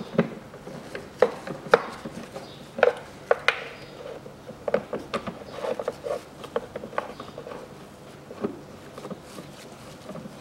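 Irregular light plastic clicks and taps as self-tapping screws are started by hand into the plastic air filter housing lid of a Peugeot 408's 1.6 engine.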